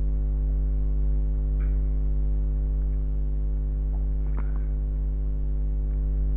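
Steady electrical mains hum from the recording setup, with two or three faint clicks.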